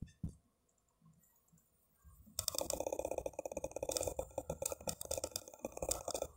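Whiteboard eraser scrubbing quickly back and forth across the board, a fast scratchy rubbing that starts about two and a half seconds in, after a brief marker click at the start.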